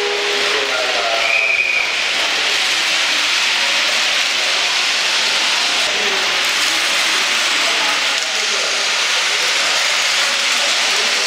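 HO-scale model trains running on the layout's track: a steady hissing rolling noise. A held horn-like tone fades out within the first second, and a short high beep follows at about a second and a half.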